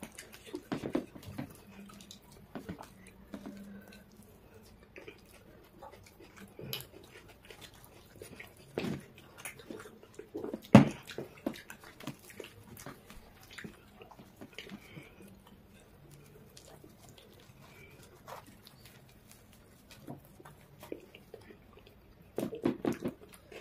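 Eating sounds from two people eating pav bhaji by hand: chewing and lip smacking, with fingers tearing soft pav buns and scooping gravy, in scattered short clicks and wet bursts. A single sharp knock about halfway through is the loudest sound.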